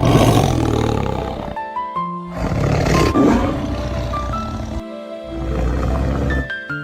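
A tiger roaring three times, each roar about a second long, over background music.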